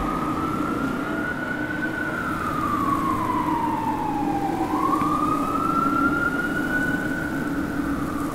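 A siren wailing slowly, its pitch rising, falling for a few seconds, then rising again, over a steady low rumble.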